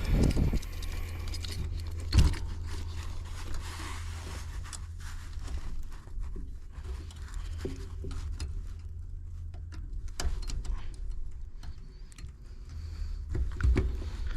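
Hand-work noise on heat pump wiring and fittings: scattered scrapes, light clicks and a few low knocks, the loudest about two seconds in, over a steady low rumble.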